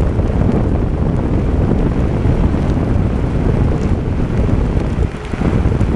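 Loud, blustery wind buffeting the microphone of a GoPro on a moving e-scooter, mixed with the rumble of the scooter's wheel rolling over a rough dirt farm track.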